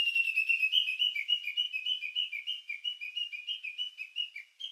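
Whistle-like trill sound effect: quick chirping notes, about six a second, alternating between a higher and a lower pitch, slowly fading out.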